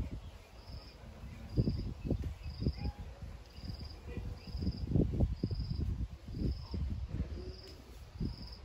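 A cricket chirping steadily, one short pulsed chirp about every second. Irregular low rumbling bumps come and go underneath and are the loudest sound.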